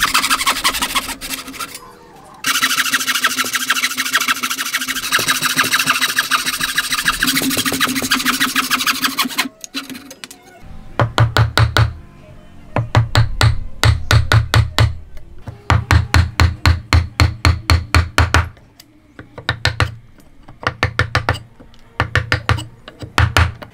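A hand saw cutting a dovetail in hardwood with rapid back-and-forth strokes, pausing briefly about two seconds in and stopping at about ten seconds. Then a chisel is struck in runs of quick, sharp taps, about four to five a second, chopping out the waste between the dovetails.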